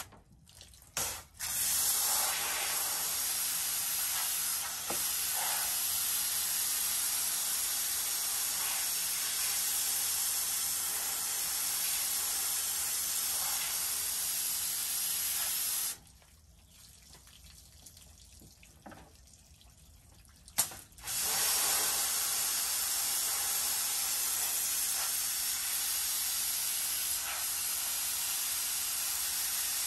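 Pressure washer wand spraying water onto car floor mats: a steady, dense hiss. It cuts out twice, briefly near the start and for about five seconds midway, and a sharp click comes just before it resumes.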